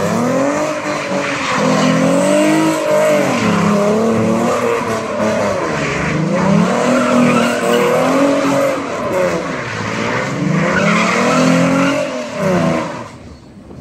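Supercharged 541-horsepower Ford Mustang doing donuts: the engine revs rise and fall over and over while the tyres squeal against the pavement. The sound drops away about a second before the end.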